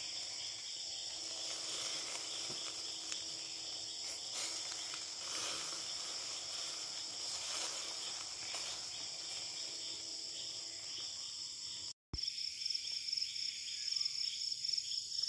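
Steady night chorus of crickets and other insects, with a faint crackle from the charcoal grill over most of it; the crackle stops after a brief break near the end, leaving the insects alone.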